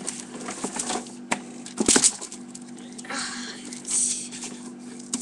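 Handling noise close to the microphone: scattered cracks and knocks, one loud bump about two seconds in, and rustling about three and four seconds in, over a steady low hum.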